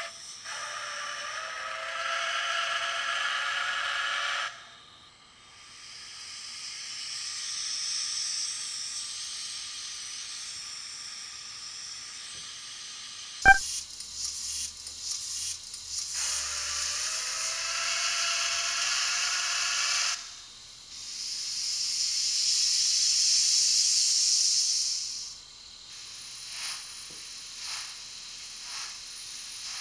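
Steam-locomotive sound effects played through a micro speaker built into an N-gauge model passenger car: a whistle blast of about four seconds, then a long hiss of steam. After a sharp click the same whistle-and-hiss sequence plays again with the car's body removed, and the hiss sounds louder and brighter.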